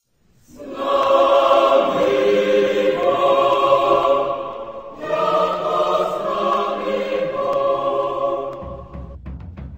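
A choir singing long held chords in two swelling phrases, part of the song's soundtrack. Near the end the voices stop and quick drum strikes begin.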